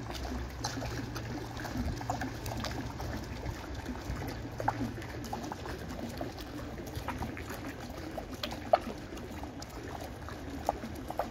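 Water spilling over the stepped ledges of an outdoor water-stair fountain: a steady trickle with many small splashes, one sharper splash about three quarters of the way through.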